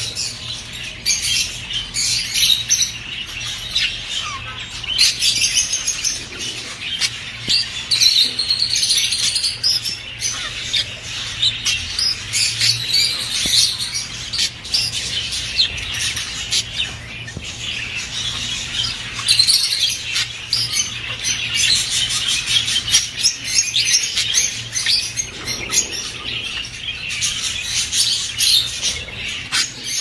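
A flock of caged budgerigars chattering and warbling nonstop, a dense stream of rapid chirps with no pauses. This is the busy warbling that male budgies use in courtship and that is played to get budgies breeding.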